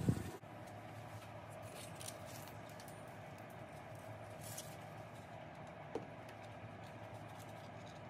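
Soft knock right at the start as the adhesive LED strip is pressed up against the underside of the cabinet, then faint rustles and a single small tick about six seconds in, over a steady low room hum.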